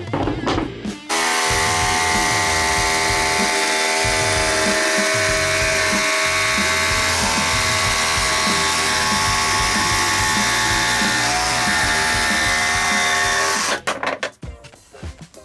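Makita cordless jigsaw running at steady speed as it cuts a speaker hole through a board: a constant motor whine with the blade's rapid strokes. It starts abruptly about a second in and cuts off shortly before the end.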